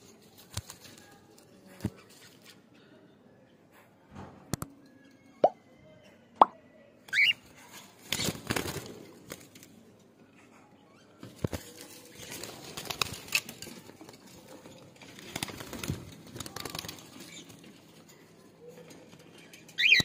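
Cockatiels moving about in a wire cage: a few short rising chirps, scattered sharp clicks and taps, and several bursts of wing flapping and rustling.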